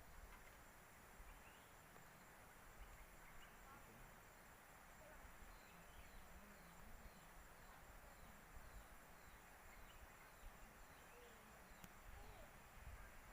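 Faint insect chorus: several steady high-pitched tones over a soft, even background hiss, with a short chirp repeating about twice a second through the middle.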